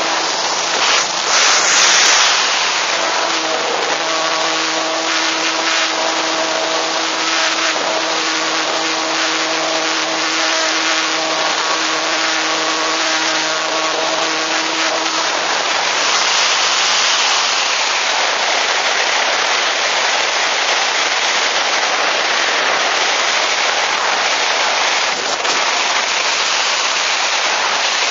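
Air rushing over an onboard camera on an Easyglider electric RC glider in flight, loud and steady with a surge about two seconds in. A steady hum from the electric motor and propeller runs beneath it and stops about halfway through, leaving only the rush of air as the plane glides.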